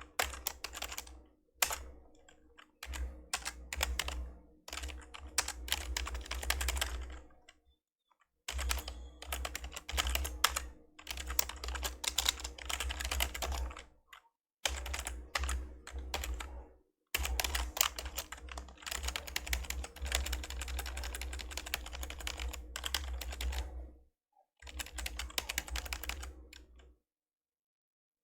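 Typing on an old membrane computer keyboard: runs of rapid keystrokes broken by short pauses, stopping about a second before the end.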